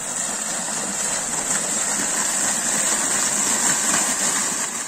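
Water gushing up out of an irrigation pipe outlet and splashing into a muddy channel, a steady rushing noise.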